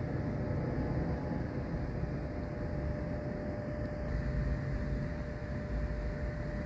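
Steady background noise of a large indoor hall: a low rumble with one thin steady hum running through it, and no distinct events.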